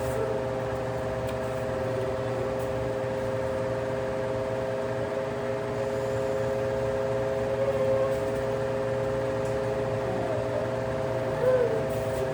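Electric desk fan running, a steady motor hum with several constant tones. A short louder sound comes near the end.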